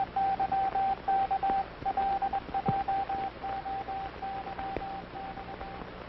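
Morse code sent on a hand telegraph key: a steady mid-pitched beep switched on and off in dots and dashes, growing fainter and stopping just before the end, with a few faint clicks.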